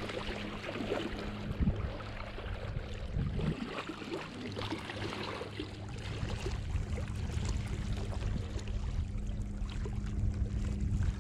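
Small waves lapping at a rocky lake shore with wind rumble on the microphone, over a steady low hum.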